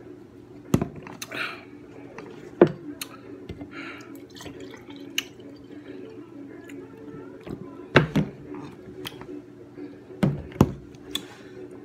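Juice poured from a large plastic jug into a glass, with several sharp knocks as the jug and glass are handled and set down. A steady low hum runs underneath.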